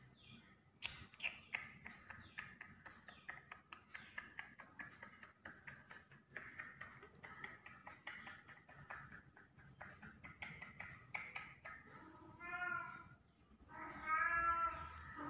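Irregular quick clicking and scratching for most of the time, then a Persian cat meows twice near the end, the second meow longer and louder.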